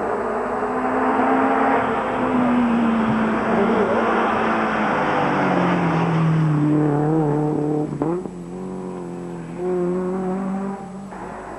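Rally cars' engines at speed as the cars come past on a tarmac stage, the engine note falling and rising through gear changes. About eight seconds in a sudden cut brings another car, quieter.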